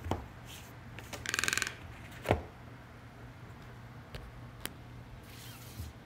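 A phone box being handled and set down on a table: a quick rattling run of clicks, then one sharp knock a little after two seconds in, followed by a few light ticks and a short rustle near the end.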